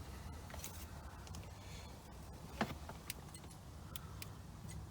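Faint scattered clicks and small rattles of small objects being handled, with one sharper click about two and a half seconds in, over a low steady hum.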